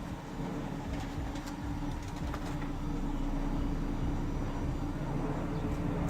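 2014 Dodge Durango's engine idling with a steady low hum, most likely left running so the new LED reverse lights can be shown lit.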